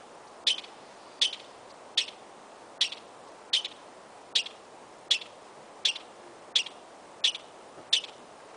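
Ground squirrel calling: a steady series of short, high chirps, about one every three-quarters of a second.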